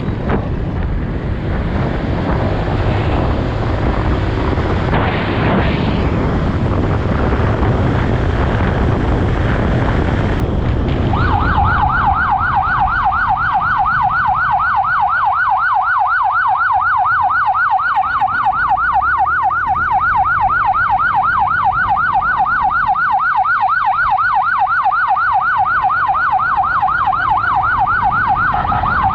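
Wind rushing over the microphone with road noise, then about eleven seconds in an emergency siren starts in a fast yelp, sweeping up about four times a second, and keeps going.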